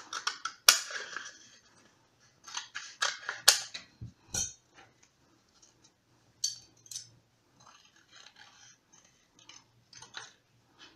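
Scissors snipping through a cardboard toilet-paper tube: a series of short, crisp cuts, louder in the first half and fainter and more scattered near the end.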